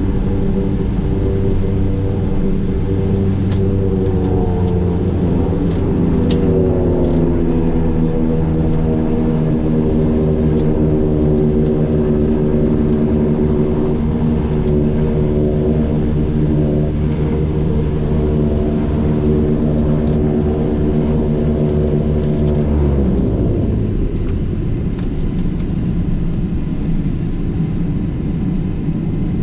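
The twin PT6A turboprop engines and propellers of a Beechcraft King Air A100 droning, heard inside the cockpit. The hum shifts and slides in pitch between about four and eight seconds in. About three-quarters of the way through, the tone drops away quickly, leaving a lower rumble.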